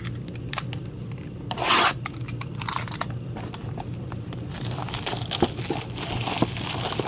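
A cardboard box of trading cards and its wrapping being opened and handled: rubbing, scraping and tearing with many small clicks, and a louder tearing rasp about one and a half seconds in. A steady low hum runs underneath.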